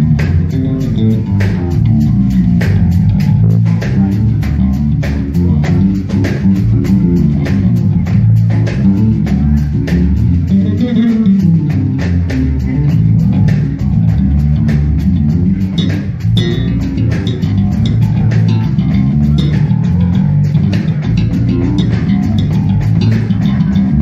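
Electric bass guitar played live through an amplifier: a busy, melodic line of low plucked notes, with a steady clicking beat behind it.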